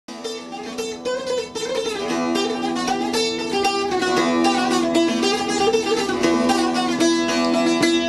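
Instrumental opening of a Kurdish song: a plucked string instrument picks a quick melody over held notes, growing louder over the first couple of seconds.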